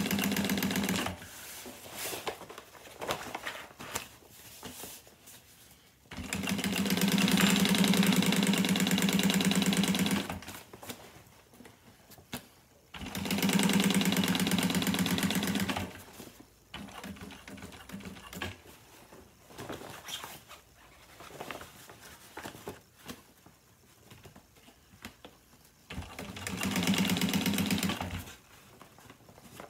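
Juki industrial sewing machine stitching webbing onto sail cloth at a long stitch, running in four spurts of a few seconds each and stopping between them, with small clicks and rustles while the work is turned.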